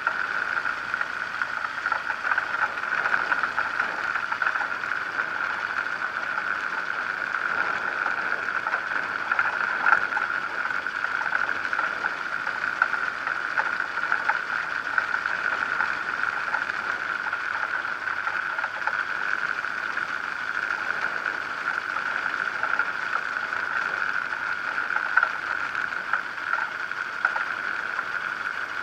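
Zenair 701 light aircraft's engine and propeller running as it taxis, heard as a steady, even drone with scattered crackle through a camera mounted under the wing.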